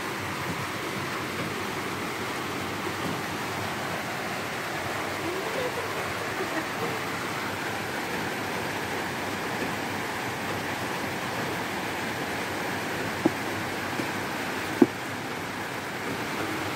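Steady rushing background noise, with two sharp clicks about 13 and 15 seconds in, the second the louder.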